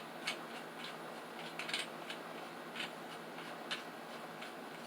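A few light clicks and taps from handling the planer sled's parts, spaced roughly a second apart, over a steady background hiss.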